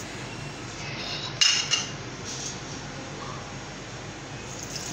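Steel kitchen utensils clinking twice in quick succession about a second and a half in, a spoon and bowl knocking as ingredients go into a mixer-grinder jar, over a steady low hum.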